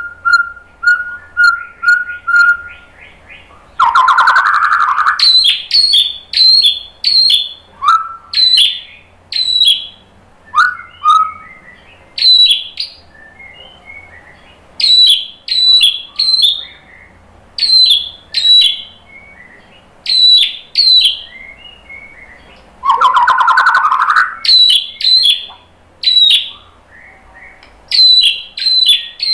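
White-rumped shama singing loudly: a quick run of repeated notes at first, then a long series of short, sharp whistled notes repeated in phrases, broken twice by a harsh rasping burst.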